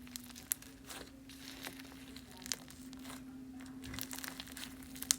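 Hands kneading and squishing slime with foam beads and clay pieces mixed in, making irregular small crackles and popping clicks over a faint steady hum.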